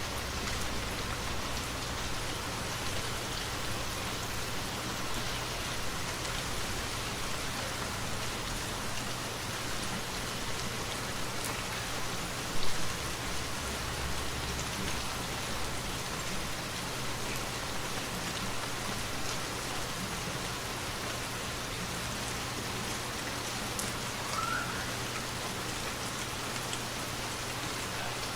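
Steady rain falling and pattering on surfaces, an even hiss throughout, with one short, louder sound about halfway through.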